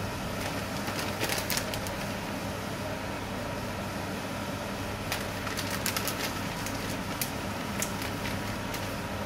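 Omelette cooking in a frying pan on an induction cooktop: a steady hum and hiss, with a few short crackles about a second in and again between five and eight seconds.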